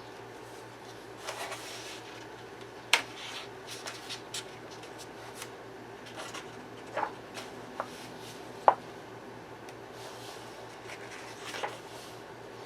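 Pages of a perforated paperback coloring book being turned one by one: soft paper rustles and a few sharp paper snaps as pages come free.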